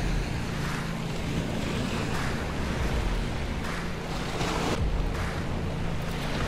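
Small waves washing and breaking over granite blocks at the foot of a seawall, the wash swelling and easing several times, with wind buffeting the microphone.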